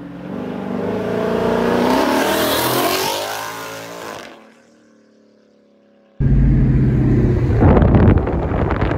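Twin-turbocharged 2019 Ford Mustang GT's 5.0 Coyote V8 with Corsa Xtreme exhaust accelerating hard at full throttle, its pitch rising as it pulls away, fading out about four seconds in. After a short lull, a sudden loud, low engine rumble and road noise heard from inside a moving car, about six seconds in.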